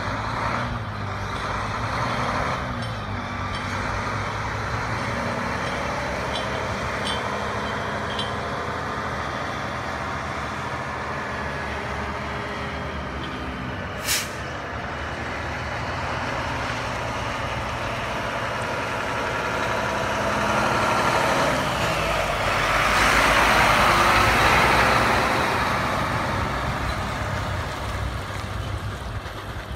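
Semi tractor-trailer's diesel engine running at low speed as it manoeuvres, with one sharp click about fourteen seconds in. Engine and tyre noise grow louder about twenty-two seconds in as the truck passes close by, then fade.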